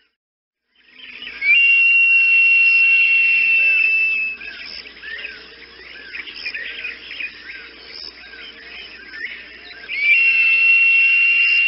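Birds calling: a long, high, steady whistle given twice, about eight seconds apart, over a busy background of many short chirps from other birds. It starts after about a second of silence.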